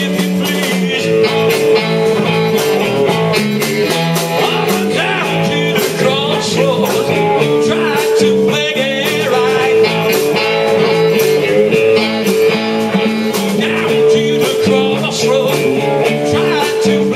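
Live blues-rock band playing: electric guitar over bass guitar and drums, loud and steady.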